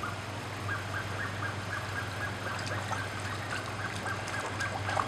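A bird calling in a rapid, steady series of short, even notes, beginning about a second in, over a steady low hum.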